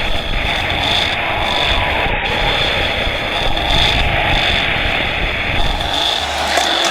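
Loud, steady engine-like noise, like motor vehicles running.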